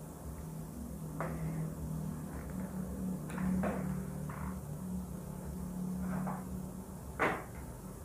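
Pen scratching on notebook paper while drawing: a handful of short strokes, the loudest about seven seconds in, over a low steady hum.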